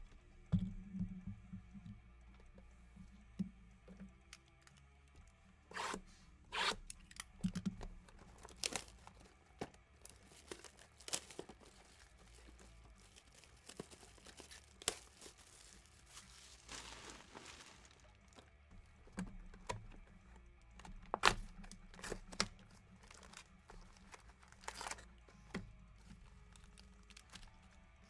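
Boxes of trading cards being handled on a desk: scattered light knocks and taps as they are set down and stacked, with a longer rustle of wrapping about two-thirds of the way through.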